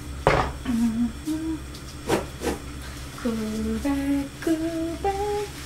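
A woman humming a tune with no words, holding notes that step up and down in pitch. Two short noisy swishes come near the start.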